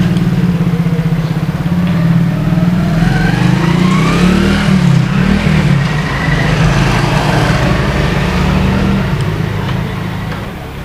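A motor vehicle engine running with a fast low pulse. Its pitch rises as it revs up a few seconds in, then settles.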